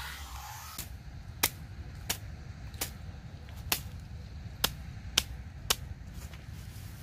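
Machete chopping through grass and weeds: about eight sharp strikes at uneven intervals over about five seconds, over a steady low rumble.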